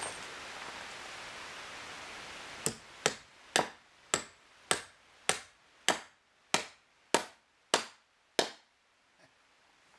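Hammer driving a nail into stacked 2x6 lumber: about eleven even strikes, roughly two a second, starting near three seconds in and stopping about a second before the end.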